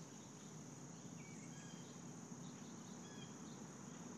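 Faint outdoor summer ambience: a steady high insect trill, with a few short high chirps scattered through and a low steady hum underneath.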